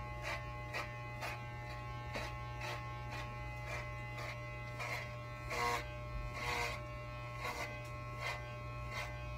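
Electric hair clippers running with a steady buzz, with short crisp sounds about twice a second as the blades cut through the synthetic wig's hair to take out bulk.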